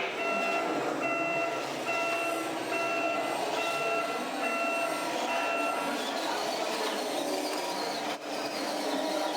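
Reversing alarm from an RC truck's sound module beeping seven times, about one beep every 0.8 s, then falling silent while the machine's running noise goes on with a slowly rising whine.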